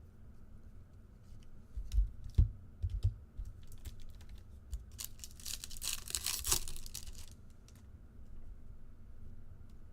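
A few low knocks from handling, then a trading-card pack wrapper being torn open, a ripping sound of about two seconds.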